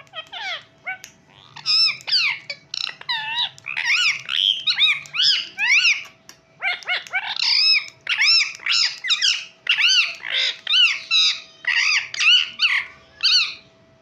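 Indian ringneck parakeets screeching: a long run of rapid, harsh, chirping calls, several a second, with a short break about six seconds in, stopping shortly before the end.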